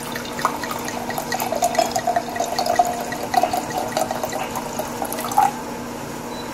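White wine being poured from a bottle into a stemmed wine glass, splashing and bubbling as the glass fills; the pour stops about five and a half seconds in.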